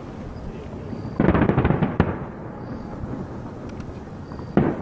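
Fireworks shells bursting in a finale barrage: a rapid volley of bangs a little over a second in, ending in a sharp crack, and a fresh burst near the end, with a low rumble of echoes in between.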